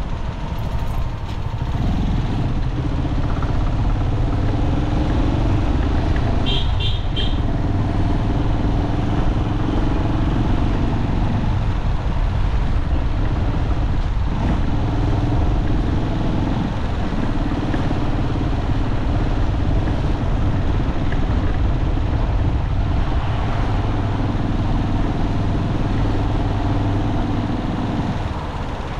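Road traffic: steady engine and tyre noise from vehicles driving on a city street. About seven seconds in come three quick high beeps, like a small vehicle horn.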